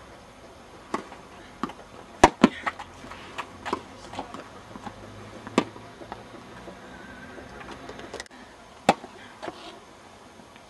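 Tennis ball being hit with rackets and bouncing on the court: a series of sharp pops at irregular intervals, the loudest a quick pair a little after two seconds in, and another strong one near the end.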